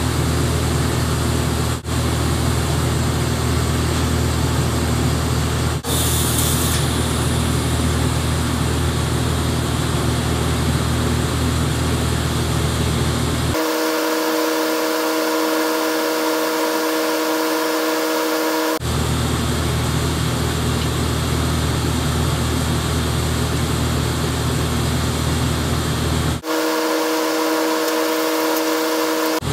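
TIG welder at work while a steel shaft is built up with weld: a steady, loud hum and hiss from the welding machine and arc. For about five seconds in the middle, and again near the end, the hum gives way to a few steady higher-pitched tones.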